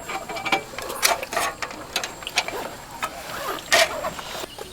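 Irregular clicking and clattering of small hard objects being handled, with a louder knock at about one second and another near the end.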